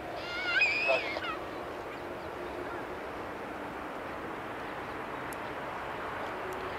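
Rushing jet noise from an Airbus A380's four Rolls-Royce Trent 900 engines as the airliner rolls slowly on the ground, growing a little louder near the end. In the first second or so, a brief high warbling sound with a wavering pitch is the loudest thing.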